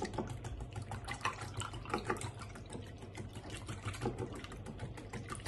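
Metal balloon whisk beating egg and milk in a glass bowl: rapid, rhythmic clicking of the wires against the bowl with the liquid sloshing.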